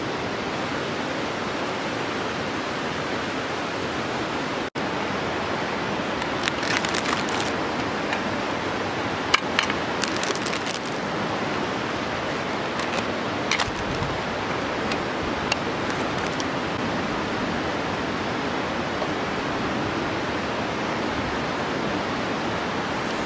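River water rushing steadily, an even wash of noise, broken by a momentary dropout about five seconds in. A few brief clicks and crackles sound over it between about six and sixteen seconds in, the sharpest around nine seconds.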